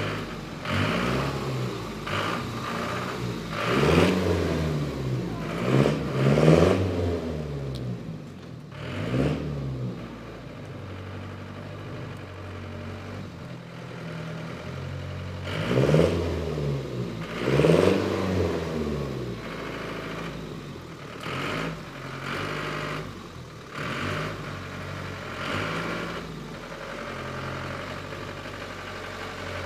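Tow truck engine revved in a series of blips, the revs climbing and falling back each time, loudest around four and six seconds in and again around sixteen and eighteen seconds, and running more quietly between the blips.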